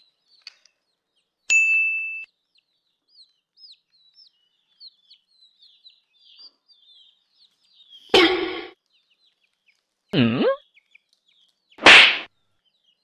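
Baby chick cheeping, a run of faint, short, high peeps. A bell-like ding rings out about a second and a half in, and three short, loud sounds come in the second half.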